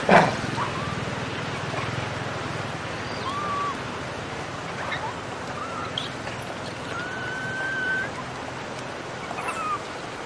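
Baby long-tailed macaque crying: a loud brief cry right at the start, then short thin whistling coos every second or two, the longest about seven seconds in, over steady outdoor background noise.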